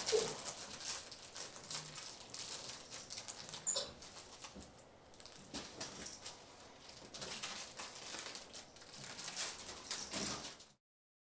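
Irregular light rustling, scrabbling and patter of a pet capuchin monkey playing in a fabric hammock, with small knocks and a couple of brief squeaky blips. The sound cuts off suddenly near the end.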